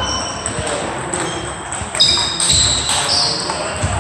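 Ball play echoing in a large sports hall: a few sharp ball hits, mixed with short high-pitched squeaks.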